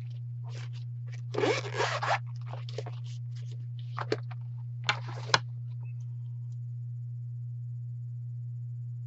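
Reaching for small hand tools: a short rasping scrape, then a few sharp clicks as pliers and small metal parts are handled, over a steady low hum.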